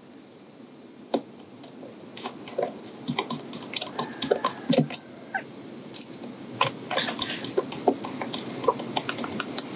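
Scattered light clicks and rustles of hands working cables into the screw terminals of a Victron Orion XS charger.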